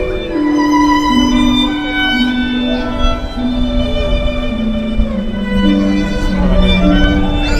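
Music with a bowed-string, violin-like melody of long held notes stepping up and down.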